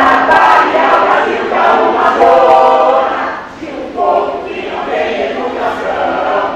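A group of voices singing together in unison, with long held notes. There is a brief pause between phrases about three and a half seconds in.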